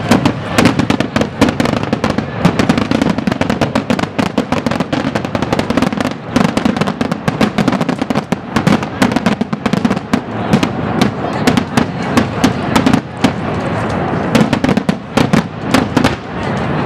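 Daytime fireworks: a dense, rapid run of sharp firecracker bangs, many a second, with music underneath.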